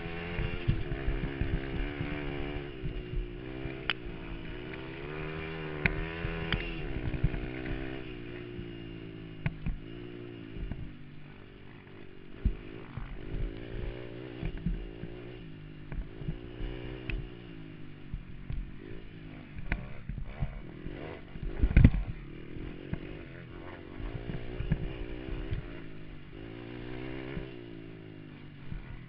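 Honda TRX90 youth ATV's small single-cylinder engine running hard, its revs rising and falling with the throttle over rough ground. Frequent knocks and rattles from the machine over bumps, with one heavy thump about three-quarters of the way through.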